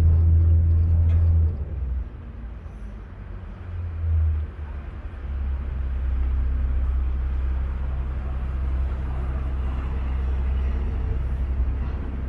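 Venetian vaporetto under way: a low engine rumble with wind and water noise. It drops sharply about one and a half seconds in, swells briefly around four seconds, then settles into a steady rumble again.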